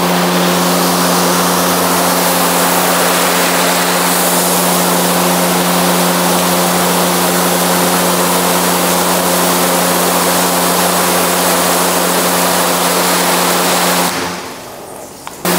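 High-pressure wash wand spraying water onto a car's hood, rinsing a freshly coated panel: a loud, steady hiss of spray with a steady hum under it. The spray stops about fourteen seconds in and starts again just before the end.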